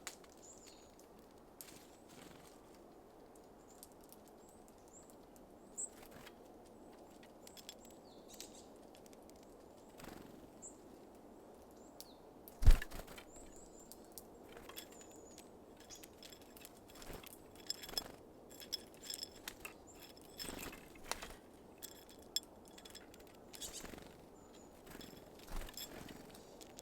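Small songbirds at a feeder: scattered short high call notes over many light clicks and taps, with one loud sharp knock a little before halfway. The tapping and calls grow busier in the second half.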